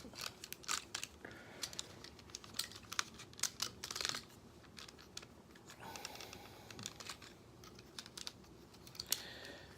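Irregular light plastic clicks and taps as the jointed parts of a Transformers Combiner Wars Sky Lynx toy figure are moved and clipped during transformation.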